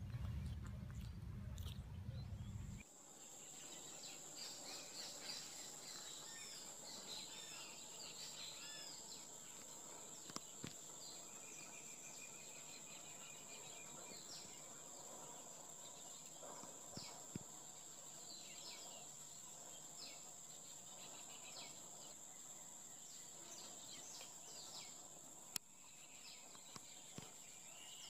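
Outdoor nature ambience: a steady high-pitched insect drone with scattered bird chirps and a few soft clicks. A low rumbling noise in the first few seconds stops abruptly about three seconds in.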